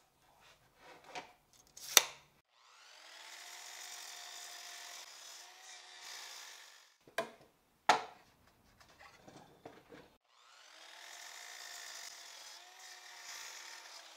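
Einhell sliding mitre saw making two crosscuts through a pine board, each about four seconds of steady motor whine and blade noise. Between the cuts come a few sharp knocks as the wood is handled.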